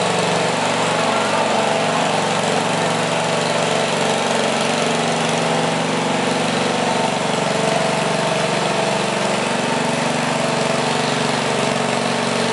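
Small garden tractor engine running steadily at an even pitch while the tractor stands still, waiting to be hooked to the pulling sled.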